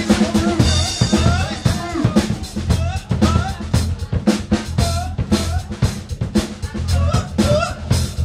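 Live rock trio playing: a driving drum-kit beat with kick, snare and cymbals, under bass guitar and electric guitar. A cymbal crash rings out about a second in.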